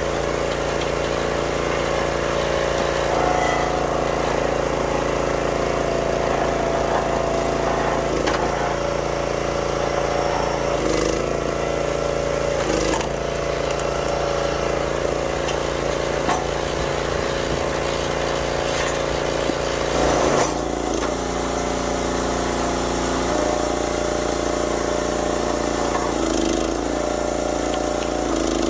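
Small gas engine of a YardMax 25-ton log splitter running steadily while maple rounds are split, with a few sharp cracks as the wood gives way. The loudest crack comes about two-thirds of the way through, and the engine note changes after it.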